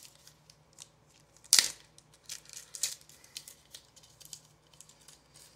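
Scattered light rustles and clicks of a foil trading-card pack being handled, with one sharper click about a second and a half in, over a faint steady hum.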